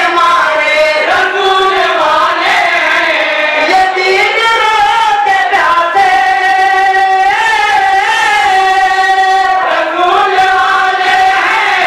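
A group of men chanting in unison into a microphone, with long held notes and winding melodic turns.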